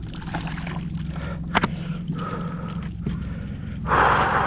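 A loud, breathy gasp from an excited angler near the end, over a steady low hum, with a single sharp click about halfway through.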